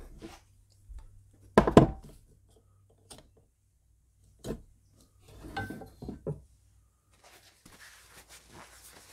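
Metal air-rifle parts handled on a workbench: a loud clunk about two seconds in, then several lighter knocks and a faint scraping near the end as the metal tube is moved and laid down.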